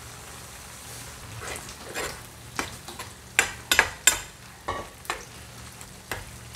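Metal spatula stirring and scraping ground beef around a pan, mixing in salt just added: about nine sharp, short scrapes starting about a second and a half in, the loudest in the middle.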